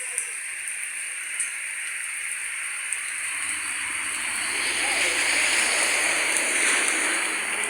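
Heavy rain pouring down in a steady hiss, growing louder about halfway through.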